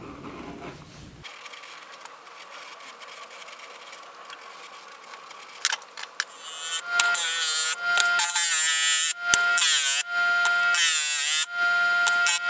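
Electric disc sander running while a coin is pressed against its spinning abrasive disc, the motor's pitch dipping and recovering under the load, heard in short choppy segments from about six seconds in. Before that, only faint hiss.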